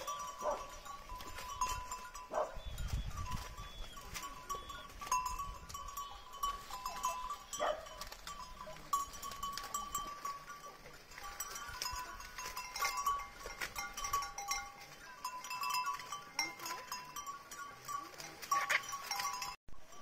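Goats feeding on hung corn stalks: leaves rustle and crackle as they are pulled and torn, with goat bleats now and then. A steady high tone runs underneath.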